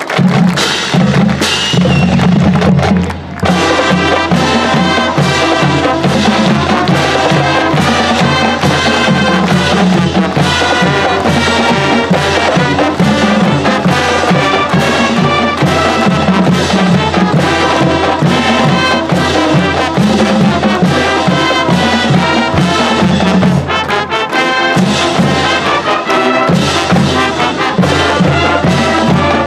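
Marching band playing: brass instruments over a drumline, with a brief drop in sound about three seconds in before the full band comes back in.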